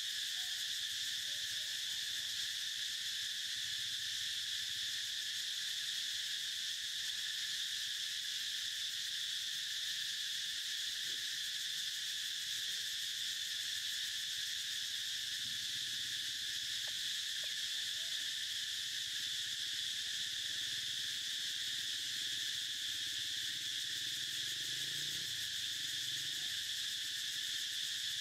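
A steady, high-pitched insect chorus: an unbroken shrill drone that holds the same level throughout.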